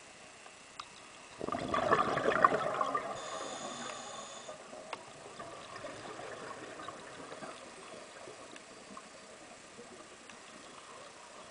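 Scuba diver exhaling through a regulator underwater: a sudden burst of bubbling about a second and a half in, gurgling away over the next several seconds, with a few faint ticks.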